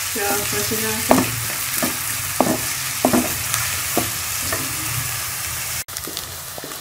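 Chopped onions sizzling in hot ghee in a metal pot, with a wooden spoon stirring them and scraping and tapping against the pan a little over once a second. The sizzle breaks off for an instant near the end.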